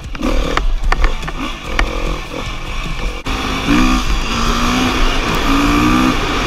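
Four-stroke enduro dirt bike engine running. Knocks and rattles in the first few seconds, then from about halfway a steadier engine note whose pitch steps up and down.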